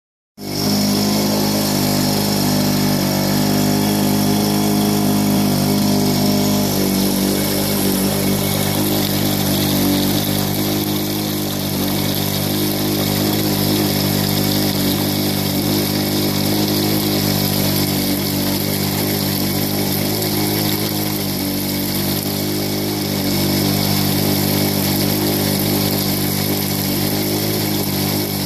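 Water rushing down an aluminium sluice box over a Goldhog washer mat, with a motor droning steadily underneath.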